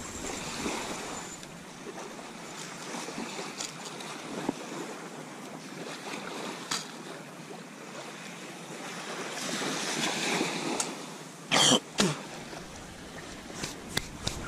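Steady wash of ocean surf and wind that swells about ten seconds in, with two short, loud noises close together a little before the end.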